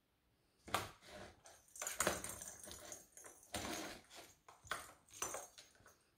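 Plastic ball rattling and rolling inside a round cat track toy as a kitten bats at it through the holes: irregular bursts of hard plastic clatter and knocks.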